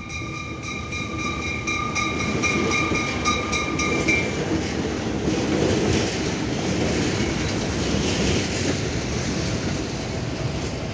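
Two GE U20 diesel locomotives passing close by, their engines and wheels rumbling, then container flatcars rattling and clattering over the rails. A high pulsing warning tone sounds at first and stops about four seconds in.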